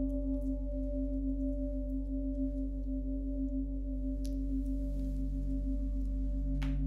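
Long, overlapping ringing tones of sound-bath gongs and singing bowls, the strongest tone wavering in a slow pulse. A lower tone swells near the end, and two faint ticks sound during it.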